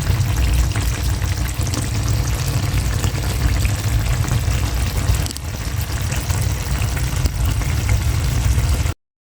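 Fermented snakehead fish paste and pork belly frying in a pan: a steady, dense sizzle and crackle of hot oil. It cuts off suddenly near the end.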